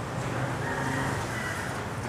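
A steady low engine hum under background street noise.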